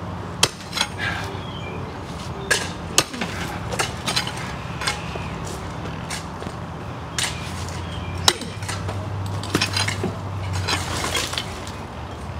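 Pickaxe striking broken concrete and gravel: irregular sharp metallic clinks and knocks, roughly one every second or so, with chunks of rubble clattering. A steady low hum runs underneath.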